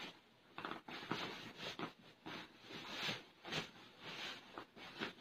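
Cloth pillowcase rustling in repeated short swishes as it is tugged and worked down over a tight-fitting pillow.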